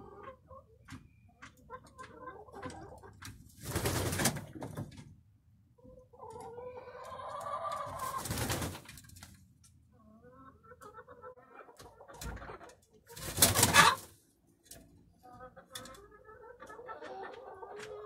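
Domestic hens murmuring and clucking softly on the roost, with three loud bursts of wing-flapping, about four, eight and thirteen seconds in, as hens flap down off the perch one at a time.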